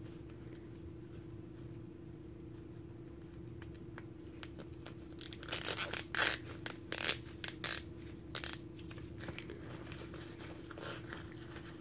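A zip tie being worked around the centre of a rhinestone-sheet cheer bow and pulled through its locking head: a cluster of short rasps and clicks about halfway through, over a faint steady hum.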